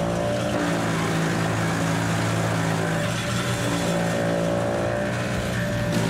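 Engine of a large wood chipper running steadily at one speed, with a constant hum and mechanical noise over it.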